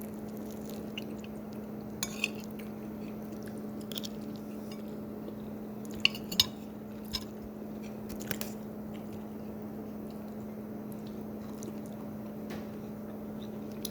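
Eating at the table: soft chewing with a few sharp clicks and clinks of utensils against dishes, the loudest pair about six seconds in, over a steady low hum.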